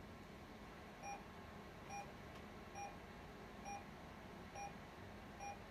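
Bedside vital-signs monitor giving short, faint, evenly spaced beeps, about one every 0.9 seconds: the pulse tone following the heartbeat picked up by the finger pulse-oximeter clip.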